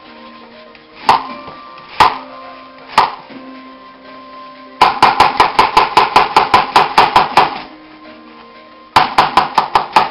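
Kitchen knife chopping onion on a plastic cutting board: three single strikes a second apart, then a quick even run of chops about six a second for nearly three seconds, and another fast run starting near the end.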